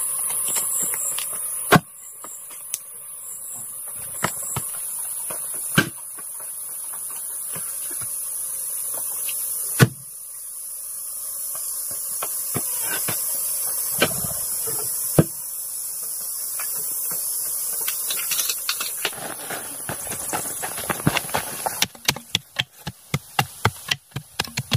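Single sharp knocks a few seconds apart, like a tool striking wood, then a quick run of lighter clicks near the end, over a steady high hiss.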